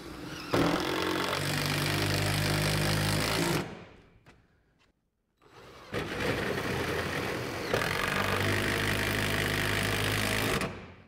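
Cordless drill running into the wooden workshop wall while a wall-rack bracket is fastened with lag screws, in two long runs: one starting about half a second in and stopping after about three seconds, then a second of about five seconds that stops near the end.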